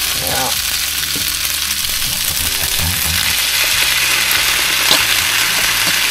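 Curry vegetables and mince sizzling as they fry in a pan on a gas hob, a steady hiss. Around halfway through, passata is poured into the pan and the sizzle grows a little louder, with a sharp click near the end.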